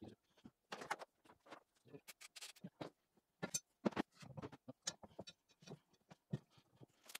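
Irregular knocks, thumps and rubbing from a rubber lawn-tractor tire on its steel wheel being handled and shifted on a workbench, with a wooden block moved alongside; the loudest knocks come about midway.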